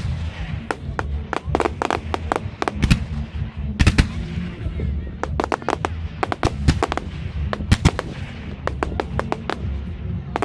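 Display fireworks going off in a rapid, irregular string of sharp bangs, several a second at times, with a few louder reports around the middle. Bass-heavy music plays underneath.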